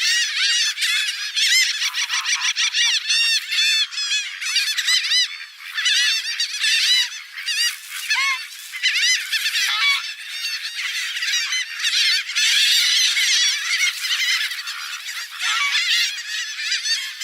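A flock of waterbirds calling, with many short arched calls overlapping continuously.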